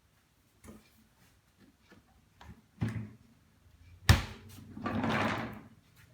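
Handling knocks: a few soft knocks, a sharp clunk about four seconds in, then a short scraping rush.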